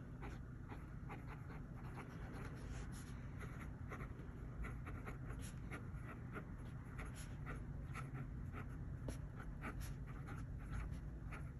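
Stub nib of a Delta Duna fountain pen writing on lined notepad paper: a faint, quick run of short scratchy strokes as letters are formed. The nib has light feedback on the paper but glides without catching.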